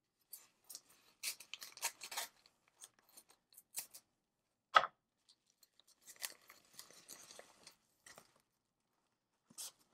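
Scissors cutting open a kraft-paper mailer: paper crackling and crinkling, a sharp click about five seconds in, then a stretch of soft paper rustling as the package inside is pulled out.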